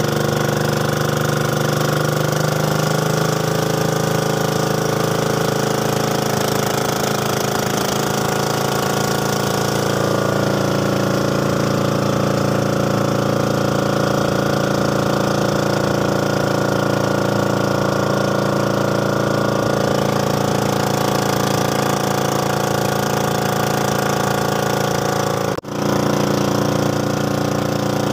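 Small boat's engine running steadily at cruising speed, under way on the water. It cuts out for an instant near the end, then carries on.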